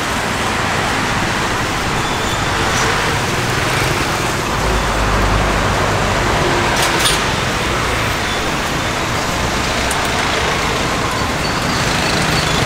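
Busy road traffic with motorbikes and cars passing close by, and a bus's low engine rumble swelling as it goes past about five seconds in.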